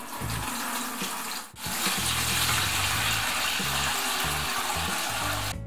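Fermented banana wine pouring in a splashing stream from a glass demijohn into a metal strainer over a plastic bucket, with a short break about a second and a half in. The pour stops abruptly near the end.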